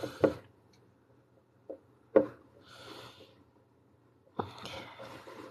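A few light knocks and taps as a clay-sculpting tool works clay on a glass bottle and touches the table, with soft hissing breaths between them.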